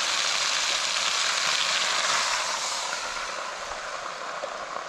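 Chicken broth poured into a hot Dutch oven of vegetables and meat, sizzling and hissing as it hits the hot pot. The hiss is strongest for the first couple of seconds, then fades as the liquid settles.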